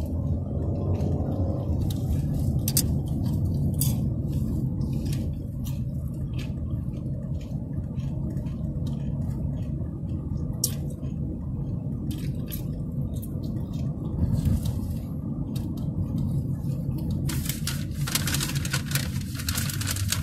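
Steady low road and engine rumble inside a moving car's cabin, with scattered small clicks and crackles over it and a denser stretch of crackling near the end.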